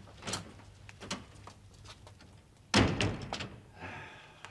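A door being shut behind departing visitors: a few light knocks and clicks, then one sudden solid thump as it closes, a little under three seconds in.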